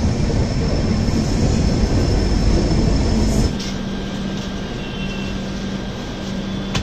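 Running noise of a moving passenger train heard from on board: a steady, loud rumble of wheels on track. About halfway through it drops abruptly to quieter running with a steady low hum.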